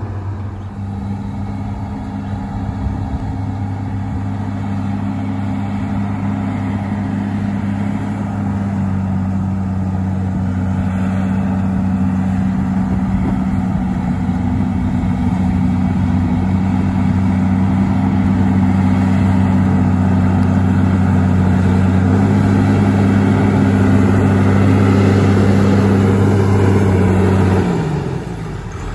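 Diesel engine of a 2003 Fabtek forwarder hauling a load of hardwood logs, running at a steady pitch and growing louder as the machine drives up. Near the end the engine note falls and the sound drops away.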